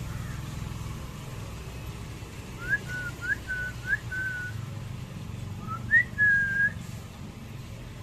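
A series of clear whistled notes: about four quick upward flicks, each followed by a short held tone, then after a pause a rising note and a longer held tone. A low steady rumble runs underneath.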